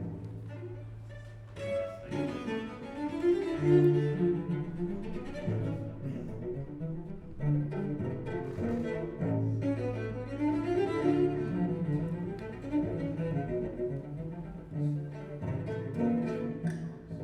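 Recorded music played through Marten hi-fi loudspeakers: an instrumental passage of long, low bowed-string notes under a moving melody, with no singing.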